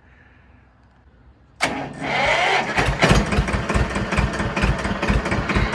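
Small old tractor's engine being started: quiet at first, then the starter cranks about a second and a half in, and the engine catches a moment later and runs with a rapid, uneven chug of low beats.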